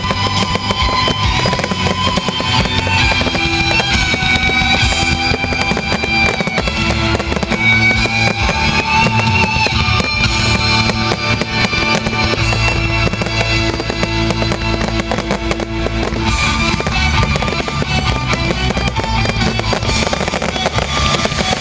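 Music with a guitar playing, mixed with many pops and crackles of fireworks.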